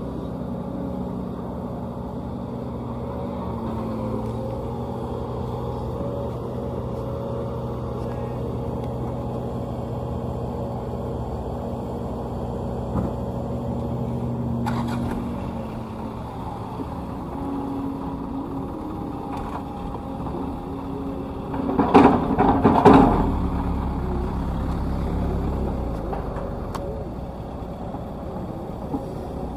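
Diesel engines of a Sumitomo excavator and a light dump truck running steadily while the excavator loads clay into the truck. The engine note shifts about halfway through, and about two-thirds of the way in a short, much louder noisy burst comes in two quick peaks.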